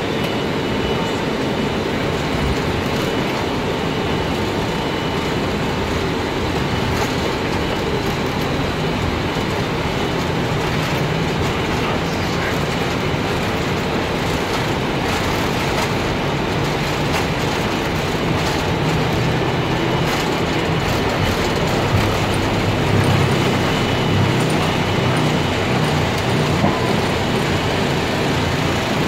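Airbus A319 takeoff heard from the cockpit: a steady loud rush of the engines at takeoff power and of the airflow, with the rumble of the wheels rolling on the runway. Some heavier low bumps come about three-quarters of the way through, around lift-off.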